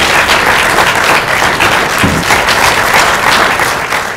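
Lecture-hall audience applauding, dense steady clapping that cuts off abruptly near the end.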